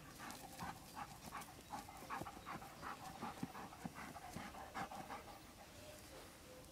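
Dog panting in quick rhythmic breaths, about three a second, while digging with its front paws in garden soil and grass. The breaths ease off near the end.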